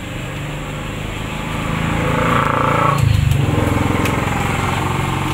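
A motor vehicle engine passes close by on the street. It grows louder about two seconds in and drops in pitch as it goes past at around three seconds, then fades slightly.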